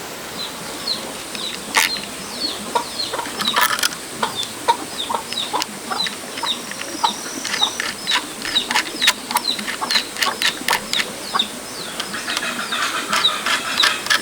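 Young chickens peeping: a steady run of short, high, falling peeps, several a second, with scattered sharp clicks among them.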